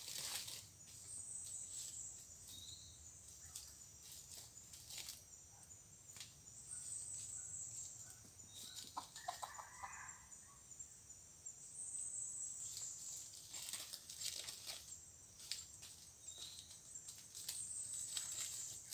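Junglefowl roosters moving through dry leaf litter, with scattered rustling and scratching, and one short pitched rooster call about nine seconds in. A high falling whistle from a forest bird or insect repeats every five or six seconds.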